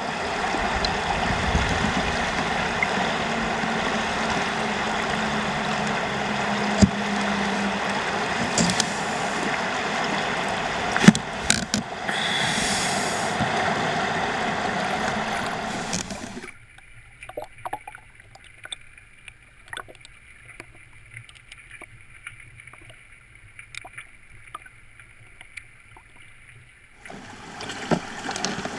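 Shallow river water rushing and gurgling over gravel, with scattered clicks and a sharp knock about 11 seconds in. About 16 seconds in it drops to a much quieter, thinner sound with small ticks, and the rush comes back near the end.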